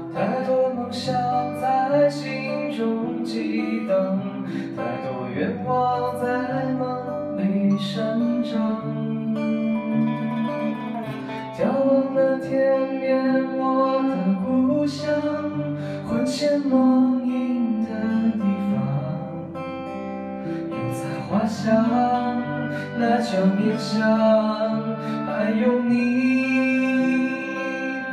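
Live acoustic band music: two strummed acoustic guitars and a djembe hand drum keeping the beat under sung vocals, with a hulusi gourd flute.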